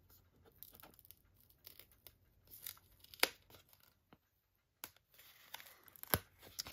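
Glued cardboard sleeve being peeled and slid off a box by hand: low paper-and-card crackling and scraping, with sharp snaps about three seconds in and again near the end, as the glue lets go.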